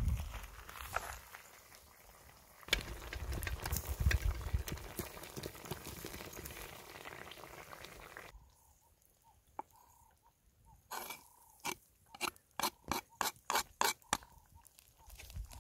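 Venison stew bubbling and sizzling in a cast iron potjie on coals, with clinks of the heavy metal lid and pot being handled. After about eight seconds it goes quiet, then near the end comes a quick run of sharp clicks, about three a second.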